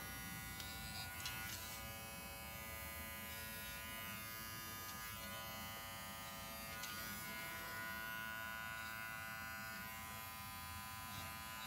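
Small cordless Propet finishing clipper running with a steady, faint hum as it trims the fur around a dog's paw.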